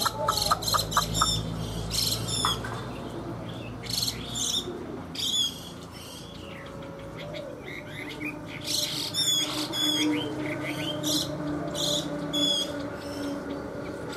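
Chinese hwamei (họa mi) songbird calling: clusters of short, high chirps and whistled notes, with a lull around the middle before a further run of notes.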